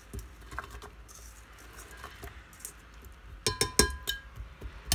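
Stainless steel colander clinking against a glass grinder jar as cauliflower is scraped and tipped into the jar: faint scraping at first, then a quick cluster of sharp, ringing clinks about three and a half seconds in, and one more near the end.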